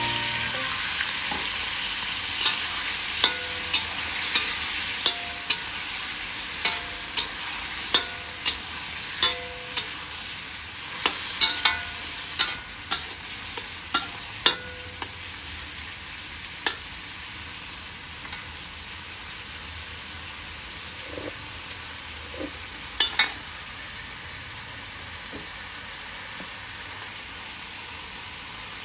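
Pork and pineapple sizzling in a wok just after water is poured in, the hiss fading to a quieter bubbling simmer. A metal spatula clicks and scrapes against the wok about twice a second through the first half, then only now and then.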